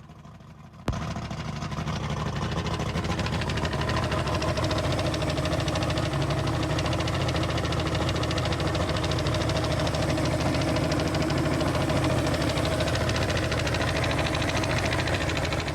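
1999 Johnson 150 Ocean Pro six-cylinder two-stroke outboard starting about a second in, then running steadily at idle. The owner takes it to be running on five cylinders, one cylinder reading zero compression.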